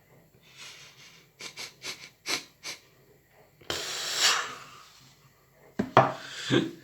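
A man eating and breathing: a string of short wet mouth smacks while he chews, then a long noisy breath out about halfway through, and a brief throaty vocal sound near the end.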